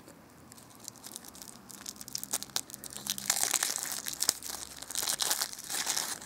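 Thin clear plastic film wrapper crinkling as it is peeled by hand off a bath bomb, loudest about three seconds in and again near the end.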